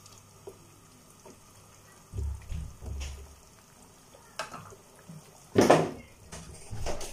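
Fish-head curry in a steel pot heating toward the boil, with faint scattered bubbling pops. A low thud comes about two seconds in, and a brief loud noisy burst near six seconds.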